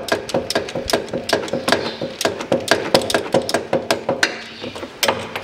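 Ratchet wrench with a socket clicking quickly and evenly, about five clicks a second, as it turns the gearbox filler plug, which is going stiffly because it is set in sealant. The clicking stops shortly before the end.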